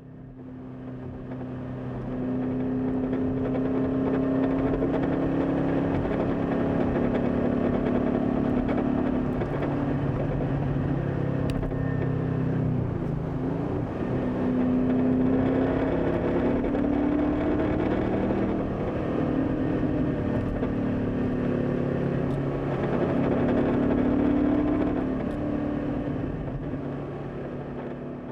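Ford Mustang Boss 302's 5.0-litre V8 running through its side exhaust pipes, its pitch rising and falling. Under the car is a vibration noise, caused by the side pipes being secured too close to the chassis.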